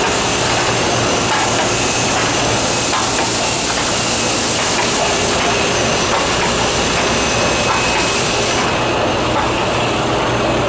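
1993 Sakurai SC 102 DX screen-printing press line running steadily in production: a constant mechanical din with a steady hum and hiss and faint ticking from the press cycling. The high hiss drops back about three quarters of the way through.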